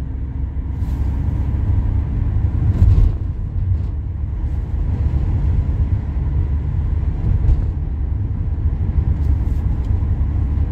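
Steady low road and engine rumble of a car driving, heard from inside the car, with a brief louder thump a little before three seconds in.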